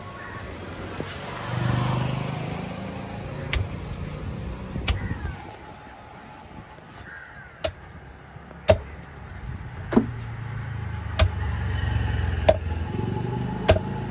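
A long heavy knife chopping through tuna into a wooden log block: sharp knocks, a couple early on and then a steady run about every second and a quarter through the second half. A motor vehicle rumbles past on the road about two seconds in and again near the end.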